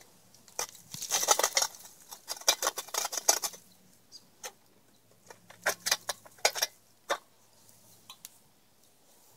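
Hot coals tipped off a cast-iron camp oven lid held in a lid lifter, rattling and pattering down onto the fire with sharp clicks and clinks, in two bursts a couple of seconds apart.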